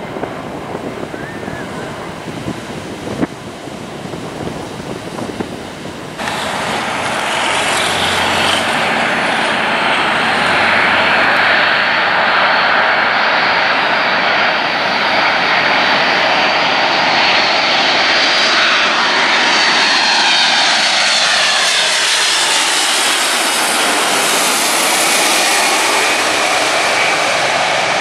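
Boeing 747-400 on low final approach, passing close overhead: the rush of its four turbofan engines swells and brightens, with whining tones that slide down in pitch as it goes by. For the first six seconds there is only a fainter, distant jet with wind on the microphone.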